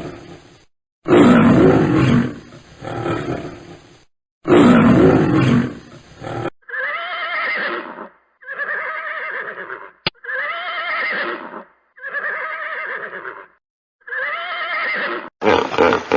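A lion roaring twice in long, deep calls, then a horse whinnying five times in shorter, wavering calls.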